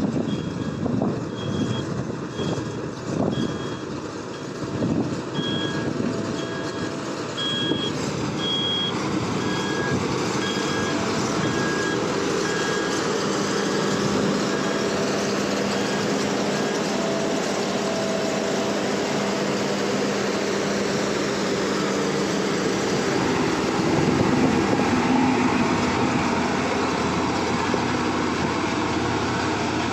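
Engine of heavy road-construction machinery running steadily, with a reversing alarm beeping about once a second until about halfway through.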